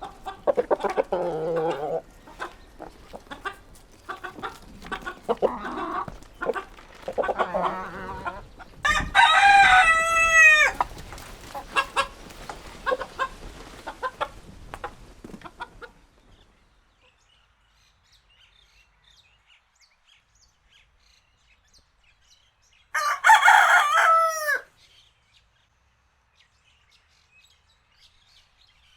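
Chickens clucking, then a rooster crows once about nine seconds in, a long call of about two seconds. After a quiet stretch with only faint bird chirps, a rooster crows again near the end.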